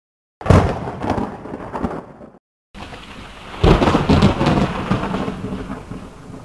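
Dramatic rumbling sound effect standing for an earthquake, in two bursts of deep rumble with crackle. The first starts about half a second in and lasts two seconds. After a brief cut, a louder one swells about a second later and slowly fades.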